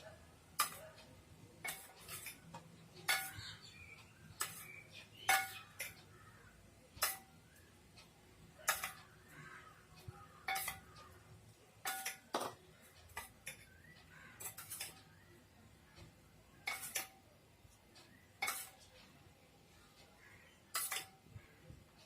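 Kitchen utensil clinking against dishes, about twenty sharp, irregular clinks with a short ring: utensils knocking on dishes while prawns are coated in egg and bread crumbs.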